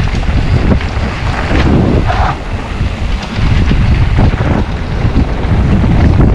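Wind buffeting an action camera's microphone while riding a mountain bike on a trail, a loud low rumble, with scattered knocks and rattles from the bike over rough ground.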